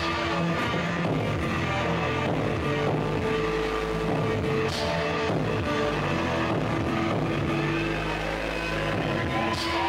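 Live noise band playing loud, dense droning music: layered electronic and guitar-like tones held for long stretches over a low rumble, with a swell of hiss about every five seconds.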